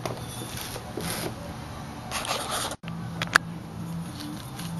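Handling of cut steel exhaust tubing pieces: soft scraping and rustling, with one sharp click of metal about three and a half seconds in.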